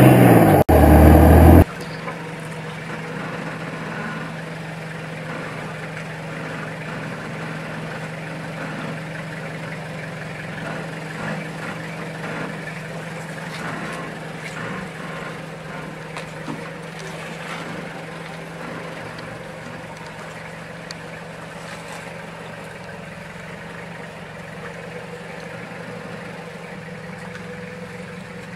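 An older Toyota Hilux 4WD's engine running at low, steady revs as it crawls up a rocky creek-bed track, with a few faint knocks. For the first couple of seconds there is a much louder rush of engine and wind noise from another 4WD driving through sand, which cuts off abruptly.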